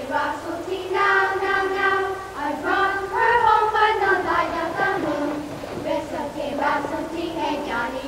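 Children singing a simple song with held notes that step up and down in pitch.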